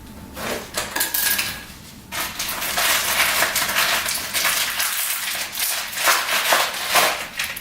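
Metal bike rack parts clinking, rattling and scraping as they are handled and fitted together, a few sharp clicks first, then a dense clatter from about two seconds in.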